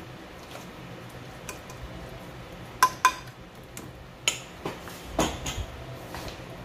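A metal utensil knocking against a stainless steel mixing bowl to get the last ricotta out: two sharp ringing knocks about three seconds in, then several lighter metal-on-metal clinks.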